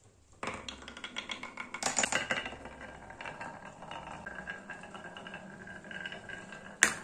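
Two marbles rolling and clattering down the wavy groove of a HABA wooden marble-run slope: a busy patter of clicks and knocks, densest about two seconds in, then steadier rolling, with one sharp knock near the end.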